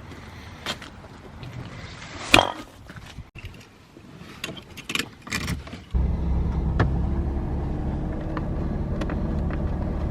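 Scattered clicks and knocks, with one louder knock a little over two seconds in, then about six seconds in a Holden Ecotec V6 engine comes in suddenly and runs at a steady idle.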